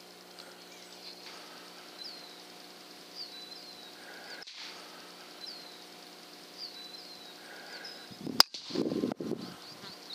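A single shot from an FX Impact PCP air rifle, a sharp crack about eight seconds in, followed by a short burst of duller noise. Small birds chirp with brief falling calls before it.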